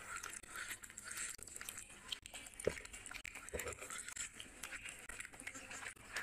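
Fingers tearing apart grilled chicken on a ceramic plate: many small wet clicks and crackles of skin and meat pulling apart, with a thump about two and a half seconds in.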